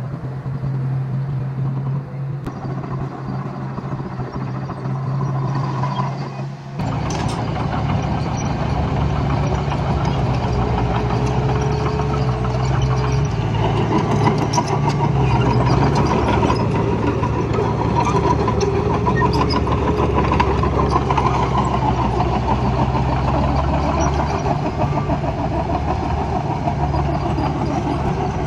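A heavy work vehicle's engine running steadily; it gets louder about seven seconds in and stays that way.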